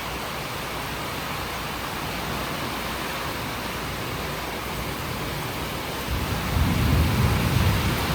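Heavy rain falling steadily, with a low rumble of thunder building about six seconds in.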